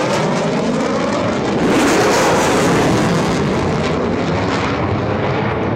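U.S. Navy F-35C Lightning II jet flying past, a loud steady jet rush that swells to its loudest about two seconds in and then eases slightly.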